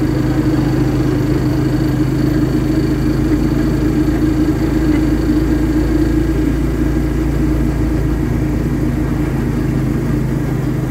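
A vehicle's engine and tyres droning steadily while it cruises along a paved highway, with an even, unchanging pitch.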